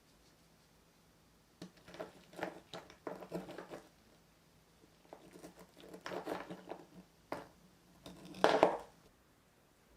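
Kitchen handling noises: clusters of small taps, clicks and rustles in two spells, the loudest burst coming near the end.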